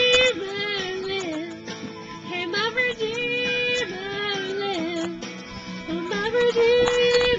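A young woman singing a Christian song solo into a handheld microphone, in three phrases that each open on a long held high note and then step down in pitch.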